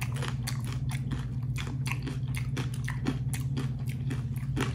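A person chewing crunchy fried tortilla chips close to the microphone: a quick, uneven run of crisp crunches.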